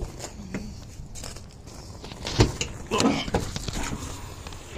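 Jeep rear liftgate being opened: a sharp latch click, then a solid knock about two and a half seconds in and handling noise as the hatch swings up on heavy-duty lift struts.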